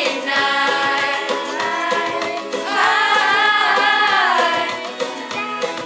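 A group of girls singing together over a recorded backing track, holding one long wavering note in the middle before the song moves on.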